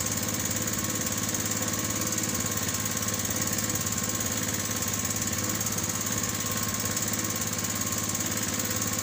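Outrigger fishing boat's small engine running steadily at an even pace.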